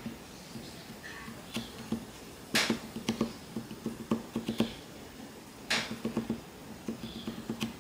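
Kitchen knife tip cutting into a tomato slice on a wooden cutting board: many small clicks and taps of the blade on the tomato and board, coming in little clusters, with two louder, longer rasps about two and a half and five and a half seconds in.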